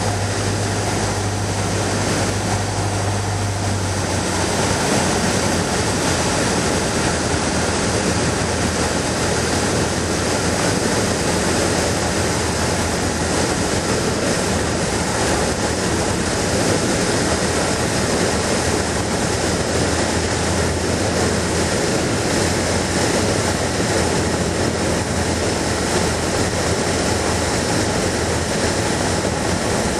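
Cessna 150's four-cylinder Continental O-200 engine and propeller heard from inside the cabin on approach to land, a steady drone mixed with airflow noise. The engine's low note drops a little about four seconds in.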